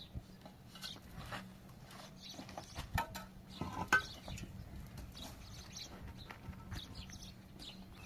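Hollow concrete blocks knocking and scraping as they are set in place by hand, with two louder knocks about three and four seconds in.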